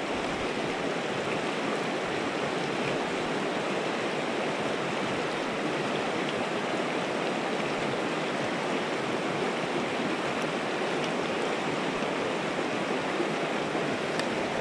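Mountain river flowing: a steady, even rush of water.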